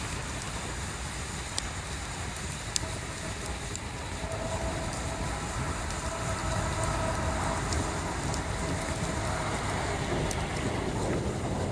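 Wood bonfire burning, with sparse sharp crackles and pops over a steady low rumble. A faint steady hum rises and fades between about four and ten seconds in.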